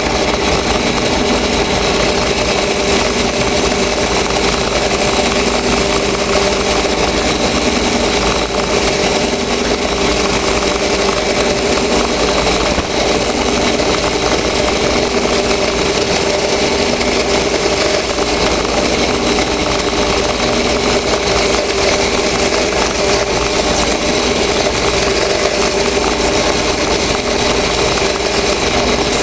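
Drill press motor running steadily, spinning a carbide-tipped 3/8-inch core box router bit while high-density foam is fed past it to route a channel for a round core.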